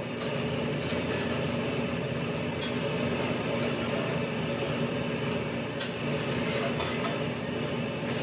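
Steady roar of a commercial kitchen's gas range and overhead exhaust hood, with a few light clicks of a metal spatula against the black steel crepe pans.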